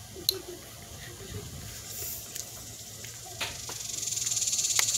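High, rapidly pulsing insect trill swelling up about four seconds in, with a few sharp clicks before it.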